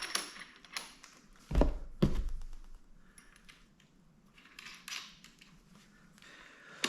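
Light metal clicks and taps of hand tools working on a pit bike's handlebar clamp, with two dull thumps about a second and a half and two seconds in, followed by a few quieter clicks.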